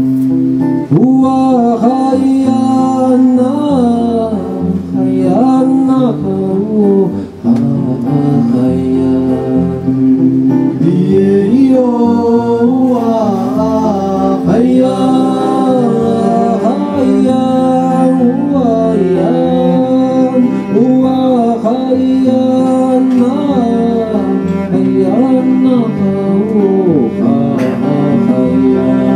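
A live song performance: a singer's voice over an acoustic string accompaniment of double bass, cello and violin, with sustained low bowed notes under the sung melody.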